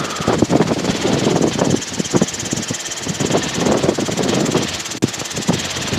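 Robinson R22 helicopter in forward flight: steady piston-engine and rotor noise with a fast, even pulsing and uneven swells in loudness.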